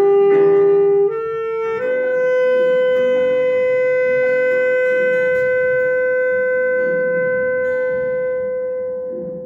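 Saxophone plays the closing phrase: two short notes stepping up, then one long held final note of about seven seconds that fades out at the end. Soft keyboard and acoustic guitar chords sound underneath.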